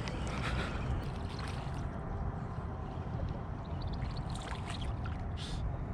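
Water splashing and trickling, with scattered small splashes over a steady low rumble.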